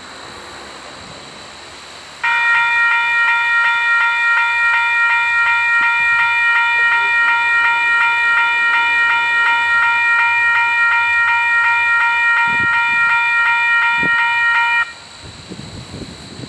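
Diesel locomotive air horn sounding one long blast of about twelve seconds. It starts suddenly a couple of seconds in, holds one pitch and loudness, and cuts off near the end.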